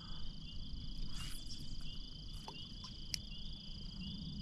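Steady, high-pitched chorus of crickets and other insects trilling, with a few faint clicks.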